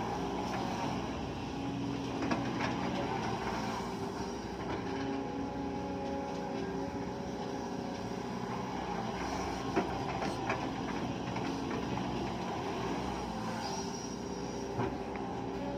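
Sumitomo hydraulic excavator's diesel engine running steadily under load as the bucket digs into soil, with a few short knocks scattered through.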